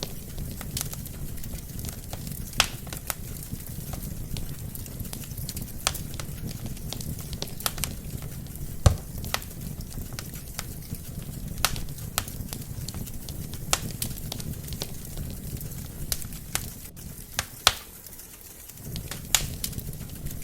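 Wood fire burning in a fireplace: a steady low rumble of flames with sharp crackles and pops at irregular intervals, one louder pop about nine seconds in. The low rumble drops away briefly near the end.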